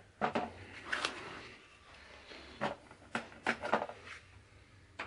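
Tools being handled in a toolkit: a series of sharp clicks and clatters, several close together in the middle and one more near the end.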